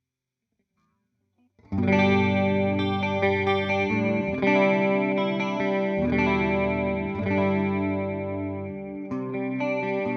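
Electric guitar (a Fender Jazzmaster with humbuckers) playing ringing chords through a simulated Fender '65 Twin Reverb amp, with the shimmer of a Boss CE-2 analog chorus pedal. It comes in after about a second and a half of silence, and the chords change every second or two.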